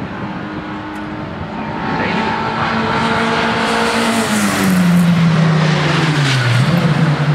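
Sports saloon racing cars running past at speed, the engine note loudest about five seconds in. Partway through, the note drops in pitch in steps and then holds lower.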